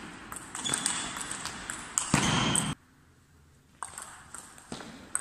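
Table tennis rally: the celluloid ball clicking sharply off the rackets and the table, several strokes in quick succession. About two seconds in comes a loud, short burst of noise that cuts off abruptly, and the clicking rally resumes near the end.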